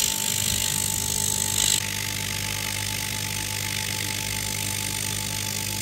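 20W dual-fan diode laser engraver cutting plywood: the laser module's cooling fans running with a steady whir, a steady whine and a low hum. A higher hiss stops about two seconds in.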